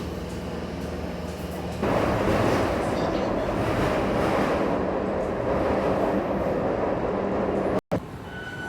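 Metro train running: a steady low hum that jumps about two seconds in to a louder, even rushing noise, which breaks off for a moment near the end.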